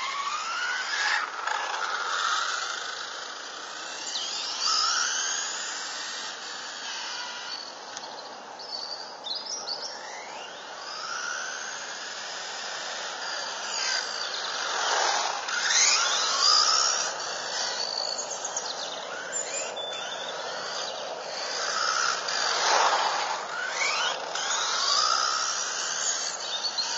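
Hobbywing EZRun 8.5T brushless motor of a radio-controlled buggy whining as it speeds up and slows down on the road, its pitch sweeping up and down again and again. It makes two close passes, about halfway through and again near the end, each with a sharp drop in pitch as it goes by.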